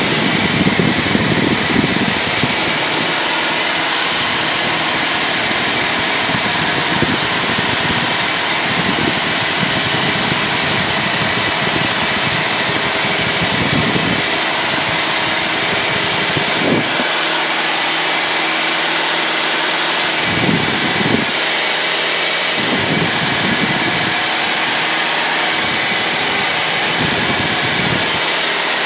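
Cessna 172N's engine and propeller droning steadily in cruise flight, picked up through the headset intercom as a hissy hum, with soft low puffs every few seconds.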